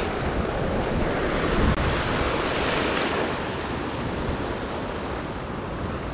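Small surf waves washing and foaming in the shallows right around the camera, a steady rush of water, with wind buffeting the microphone.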